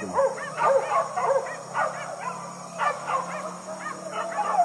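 A pack of hunting dogs yelping and baying in short, overlapping calls, several a second, as they chase a wild boar.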